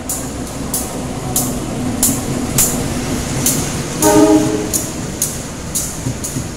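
Diesel locomotive hauling passenger coaches passing at speed: a steady rumble with sharp wheel clacks over the rail joints about every two-thirds of a second. A short horn blast sounds about four seconds in.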